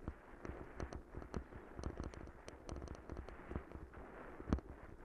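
Bicycle rattling and clunking over a rough, rutted dirt track: irregular sharp knocks from the frame, handlebars and camera mount as the wheels jolt over bumps, under a steady rushing noise. One louder knock comes near the end.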